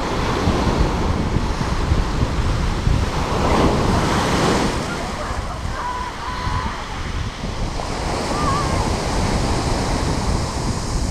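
Sea waves breaking and washing over a pebble beach, a steady rushing surf with wind buffeting the microphone. One wave surges louder about four seconds in.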